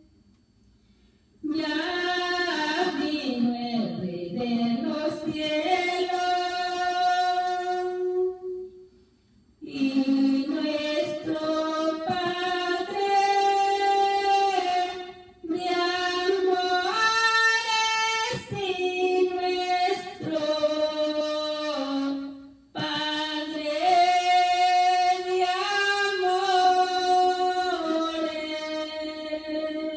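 A woman singing a praise hymn alone and unaccompanied, in phrases of several seconds with long held notes and short breaks between them.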